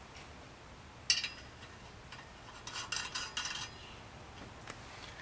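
Light metallic clinks and clicks of 1/2-inch nuts being threaded finger-tight onto steel bolts by hand: one sharper click about a second in, then a short cluster of lighter ones about three seconds in.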